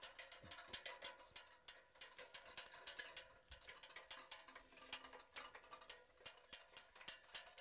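Near silence with faint, rapid, irregular clicking and crackling.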